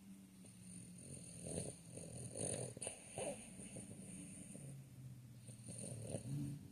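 A sleeping dog snoring: low rumbling breaths, with a few louder breaths about one and a half, two and a half and three seconds in.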